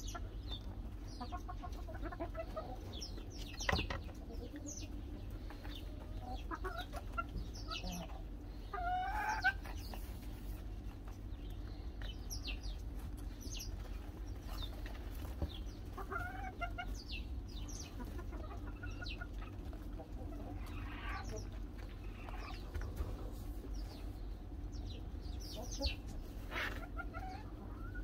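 Farmyard poultry in the background: hens clucking now and then, with many short, high, falling chirps scattered throughout over a steady low hum.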